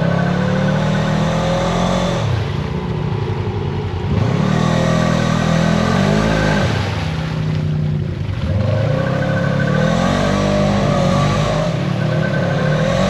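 Polaris RZR 900 side-by-side's twin-cylinder engine revving up and easing off about three times in a row, under load.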